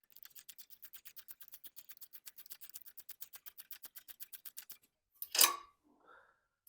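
Ratchet wrench clicking rapidly and evenly, about ten clicks a second, as a new spark plug is run into the mower engine's cylinder head; the clicking stops and a single louder clatter follows about five seconds in.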